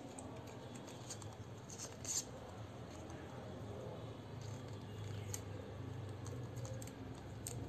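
Faint clicks and scrapes of a kajal pencil and its small cardboard box being handled, over a steady low hum.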